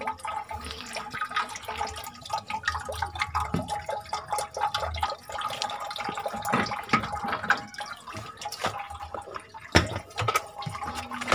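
Radiator water draining out of the disconnected hose, trickling and dripping irregularly into a basin. There is one sharp knock nearly ten seconds in.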